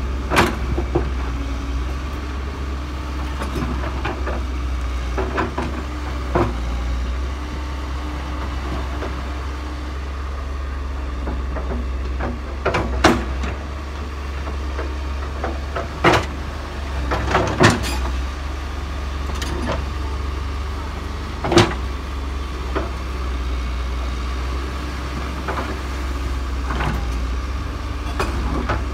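Case hydraulic excavator's diesel engine running steadily, with scattered sharp knocks and clanks as its bucket digs into rocky soil and rubble.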